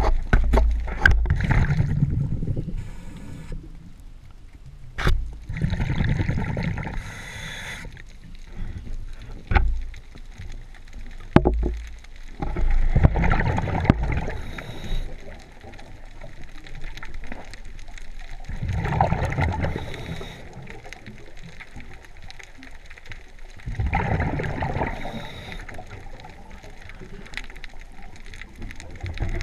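A scuba diver breathing underwater through a regulator: five bursts of exhaled bubbles, about every five or six seconds, with quieter stretches between and a few sharp clicks.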